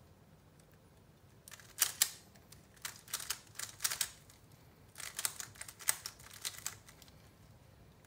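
Plastic 3x3 Rubik's cube being turned quickly by hand, its layers clicking and clacking in two runs of rapid turns of about two seconds each, with a short pause between.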